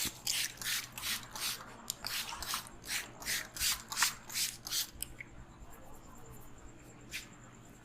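Quick rhythmic rubbing strokes against hair and scalp during a head massage, about three a second, stopping about five seconds in, with one more stroke near the end.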